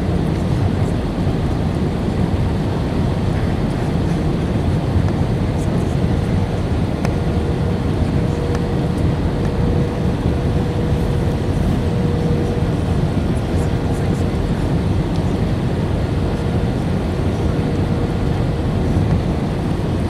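Steady cabin roar of an Airbus A319-111 on final approach, its CFM56 engines and the airflow over the extended flaps and slats heard through the fuselage, with a faint steady whine that is strongest in the middle stretch.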